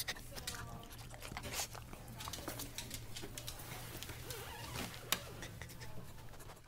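A poodle moving about close to the microphone: scattered clicks and rustling, with a sharper click about five seconds in.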